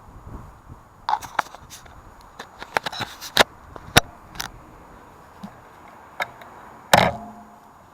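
Irregular sharp clicks and knocks from the rear wheel of a Carrera Crossfire 2 hybrid bicycle, the noise the rider is trying to track down, with the loudest knocks a few seconds in and near the end.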